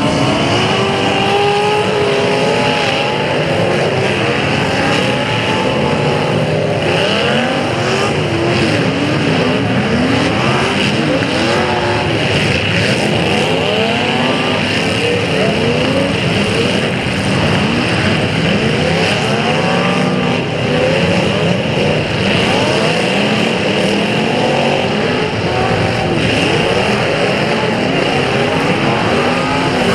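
Several demolition derby cars' engines revving up and falling back over one another, with occasional thumps of impacts.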